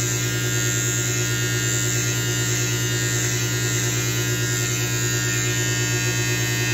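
Electric hair trimmer with a metal T-blade running with a steady buzz as it trims a beard along the neck.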